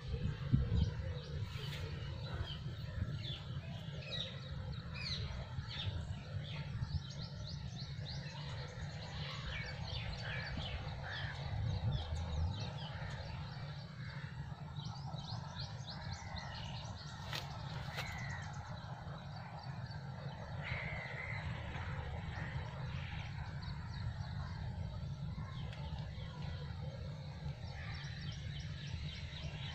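Birds chirping and calling in quick short notes, thickest in the first half, over a steady low rumble.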